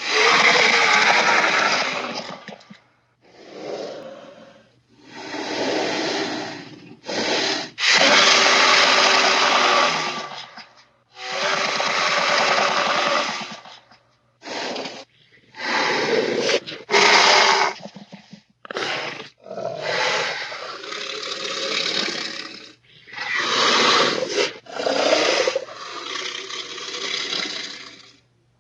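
Designed Baryonyx dinosaur sound effects: about a dozen separate roar-like calls, each one to three seconds long, with short gaps between them. A faint steady low hum sits underneath.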